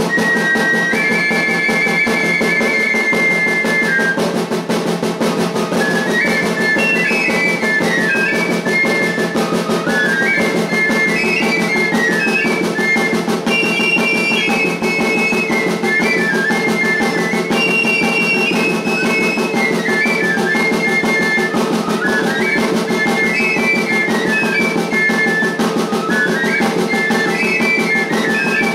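Two cane pipes playing a high melody in parallel over small rawhide-headed hand drums beaten rapidly with sticks: pipe-and-tabor music. The pipes hold a long note for about three seconds at first, then run into a quick, winding tune over unbroken drumming.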